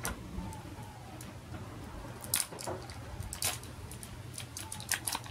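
Plastic wrapping being picked and peeled off a small plastic toy capsule with fingernails: scattered crinkles and clicks, with louder ones about two and a half and three and a half seconds in and a cluster near the end.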